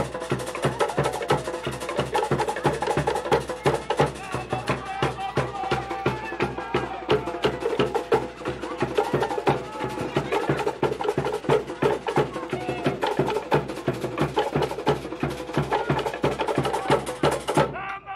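Cook Islands drum ensemble playing a fast dance beat: rapid, clattering strokes on wooden slit log drums over a steady low bass drum pulse. It cuts off suddenly near the end.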